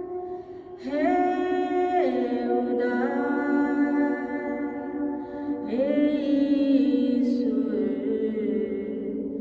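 A woman singing a slow, unaccompanied prayer, holding long notes and moving from one pitch to the next every second or two.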